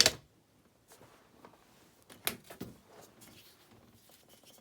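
Metal bike locks being handled and set down: a sharp clank right at the start, then lighter knocks a little over two seconds in, with faint handling noise between.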